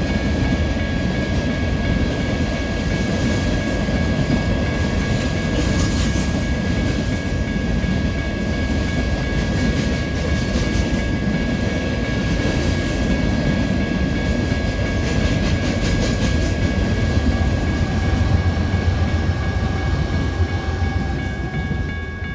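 Cars of a Union Pacific rock train rolling past: a steady heavy rumble with a steady high-pitched wheel squeal, and wheels clacking over rail joints in spells a few seconds apart.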